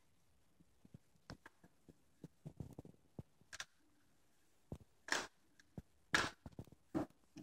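A dog hunting flies at slatted window blinds: scattered light clicks and taps, with a few short, louder rattling bursts in the second half, the loudest about six seconds in.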